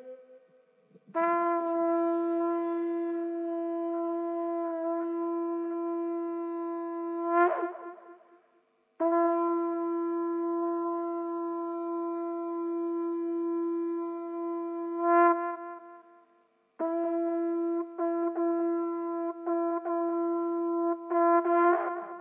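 Conch shell (shankh) blown in three long steady blasts of about six seconds each. Each blast holds one pitch and ends in a brief wavering break of the tone.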